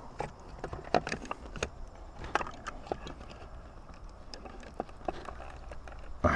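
Scattered light clicks and taps of small parts being handled as wires are pushed back onto a trolling motor's control board connections, irregular and close to the microphone.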